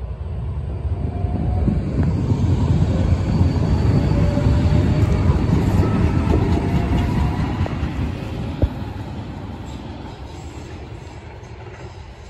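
A rail train passing: a low rumble builds, holds for several seconds and then fades away, with faint wheel squeal and a single sharp clack about two-thirds through.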